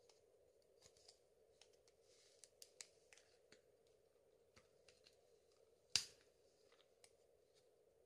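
Near silence: room tone with a faint steady hum and scattered small clicks, with one sharper click about six seconds in.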